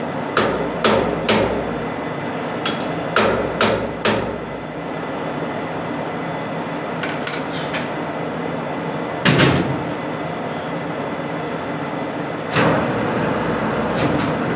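Hammer blows on metal: three quick strikes, then four more, then scattered single strikes, one with a short metallic ring. Under them runs a steady workshop machine noise.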